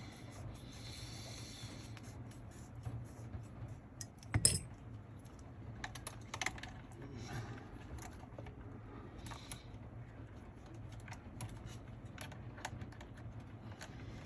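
Small clicks and taps of plastic and metal RC car suspension parts and tools being handled, with one sharper clack about four and a half seconds in.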